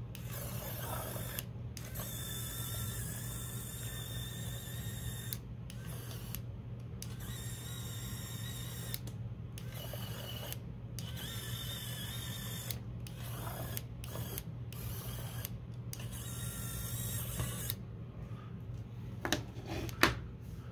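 Small N20 gear motor and plastic gear train of a 3D-printed toy car whining as it drives and steers, stopping and starting about ten times as the switch box flips it between driving, steering and direction. A couple of knocks near the end.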